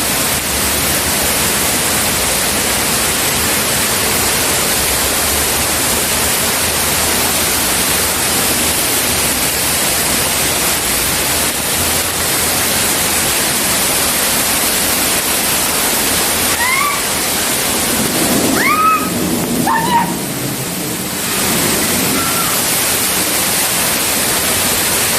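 Waterfall pouring close by: a loud, steady rush of falling water. About two-thirds of the way through, a few short, rising yelps from a voice cut through it, and the rush briefly dips.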